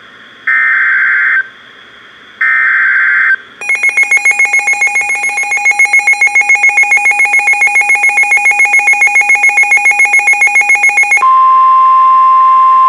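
Emergency Alert System signalling from a NOAA Weather Radio broadcast: two short buzzy SAME header data bursts, then about seven seconds of rapid electronic pulsed beeping, then a steady single-pitch warning alarm tone about two seconds from the end. Together these signal that a warning message is about to follow.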